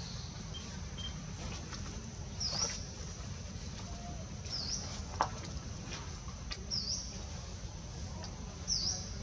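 A bird repeating a short, high chirp that dips and rises in pitch, about once every two seconds, over a steady high drone and low outdoor rumble. A single sharp click comes about five seconds in.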